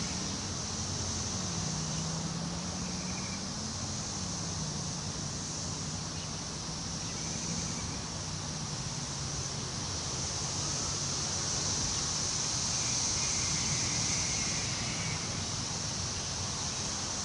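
Wind rustling through tree leaves in a steady hiss that swells in a gust about two-thirds of the way through. A faint low drone wavers up and down in pitch underneath during the first few seconds.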